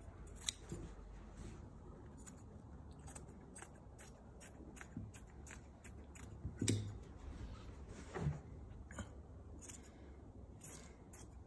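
Scissors cutting through cotton dress-shirt fabric: a string of faint, irregular snips and crunches, with a couple of louder clicks about seven and eight seconds in.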